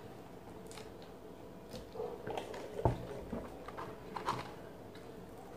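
Faint tabletop eating noises: a single sharp knock about halfway through as the paper drink cup is set down on the table, then small rustles and clicks of fries being picked out of their cardboard carton.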